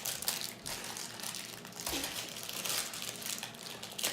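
Crinkling plastic packaging handled and pulled open by hand to get at a small toy surprise, in irregular crackly rustles.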